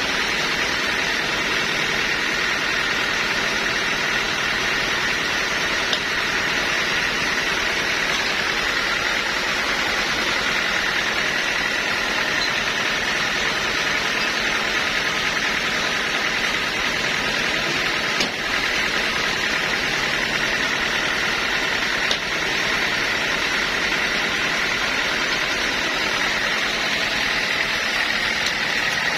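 Sawmill machinery running steadily, with a constant high whine over a dense mechanical noise and a few faint knocks.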